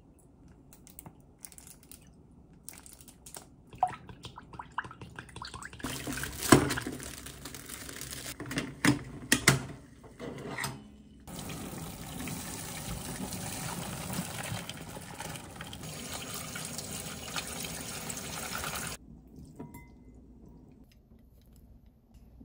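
A pot of hot water poured out into a plastic colander in a sink to drain boiled udon noodles: a steady splashing rush for about seven seconds that stops abruptly. Before it come light clinks and knocks of a spoon in a glass bowl and of the pot being handled.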